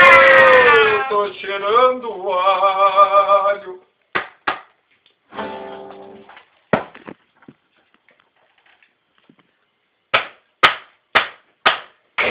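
Lo-fi homemade noise-grind music: a loud, held, pitched tone drops in pitch about a second in, wavers, and cuts off at about four seconds. Sparse short stabs and a brief fading tone follow, and near the end come five sharp hits about half a second apart.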